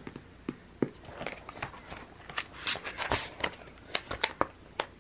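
Clear plastic sheet-protector pages in a ring-bound sticker binder being flipped by hand: a string of crisp swishes and clicks, busiest and loudest around the middle.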